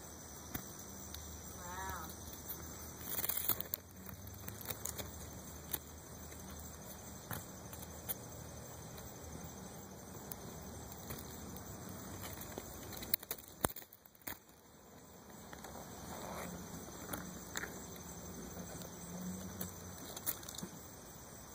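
Faint outdoor background with scattered clicks and rustles from handling the camera. There is a short warbling call about two seconds in and a louder rustle a second later. The mating leopard slugs themselves are silent.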